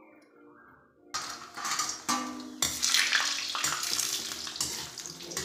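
Dried badi nuggets dropped into hot oil and cumin in a steel kadhai about a second in, setting off loud sizzling frying. A steel ladle scrapes and clinks against the pan as they are stirred.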